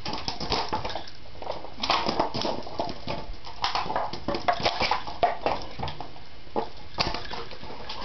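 American bulldog–bullmastiff cross dog moving about: a scatter of irregular clicks and taps, with a few brief whimpers near the middle.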